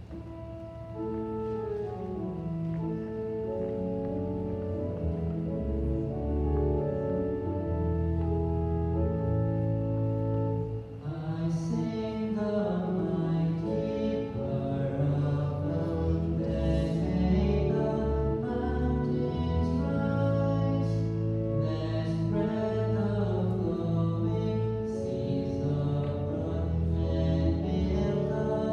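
Entrance hymn: an instrumental introduction of held, sustained chords, then a voice comes in singing about eleven seconds in over the continuing accompaniment.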